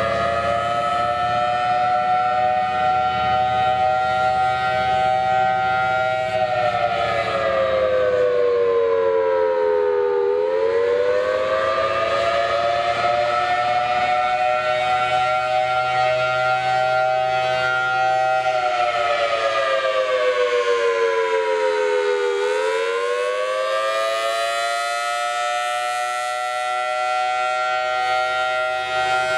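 Federal Signal Thunderbolt 1000T warning siren sounding its attack signal, a loud two-tone chord that climbs, holds briefly, then drops. It falls to a low point about ten seconds in and again near twenty-two seconds, climbing back up each time.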